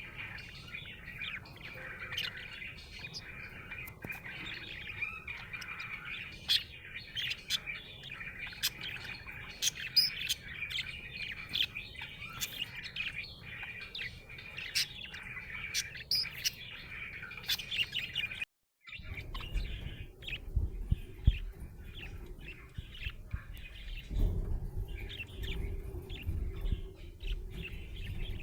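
Budgerigar chirping and warbling without pause, a busy stream of short, sharp chirps. About two-thirds of the way through the sound cuts out briefly; after that the chirping is fainter over a low rumble.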